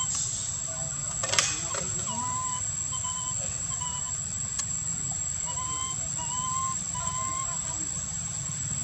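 A baby monkey crying in a run of short, thin, level cries, roughly one a second, with a sharp click about a second and a half in.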